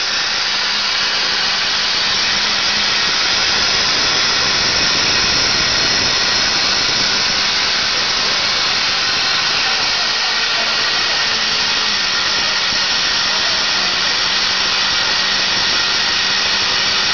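Airless paint spraying equipment running: a loud, steady hiss with a faint low hum underneath, holding even throughout.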